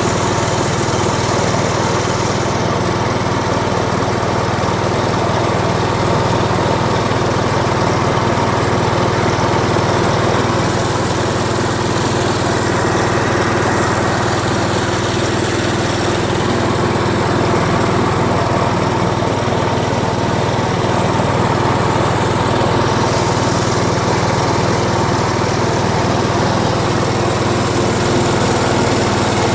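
A small engine running steadily at an even speed throughout, with no change in pitch.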